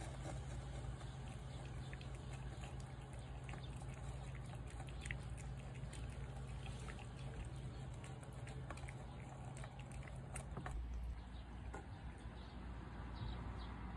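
Cats eating from a plate: faint, scattered small clicks of chewing and licking over a steady low hum, which shifts about eleven seconds in.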